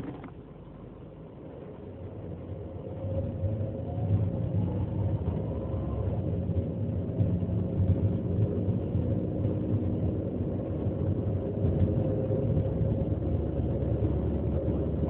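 Ford Focus engine and drivetrain running under way, quiet at first and building about three seconds in to a steady level, with a faint whine that rises and fades around six seconds. The car is being recorded for an abnormal noise on the shift from second to third gear.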